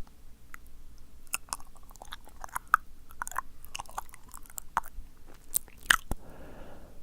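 Close-miked wet mouth sounds: a rapid, irregular run of tongue and lip clicks and smacks, ending in a short breathy hiss.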